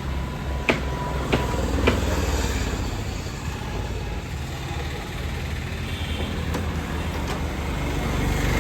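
Steady low outdoor rumble, with a few sharp clicks in the first two seconds and two fainter ones near the end.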